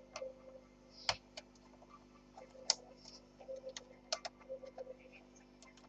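Faint, scattered small clicks and taps of plastic as hands and a tool work the laptop's ribbon-cable connectors and case, with two sharper clicks about a second in and near the three-second mark.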